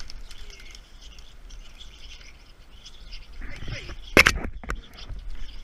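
Birds chirping faintly, with a sharp knock or crack about four seconds in and a smaller one just after.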